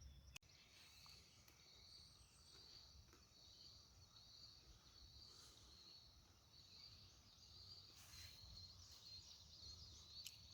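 Near silence: faint, steady high-pitched insect chirring over a low background rumble.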